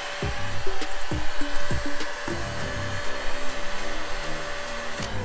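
Electric heat gun blowing hot air onto PVC pipe to soften it, a steady rush of air with a thin motor whine, over background music with a beat.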